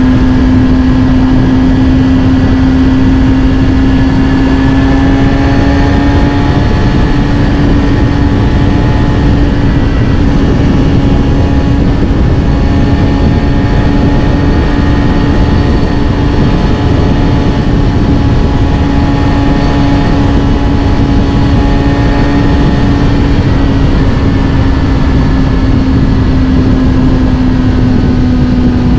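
Kawasaki Ninja ZX-6R's inline-four engine running through a Scorpion titanium exhaust at a steady pitch while the bike is ridden. The pitch rises slightly about five seconds in and eases back down near the end, over a constant rush of noise.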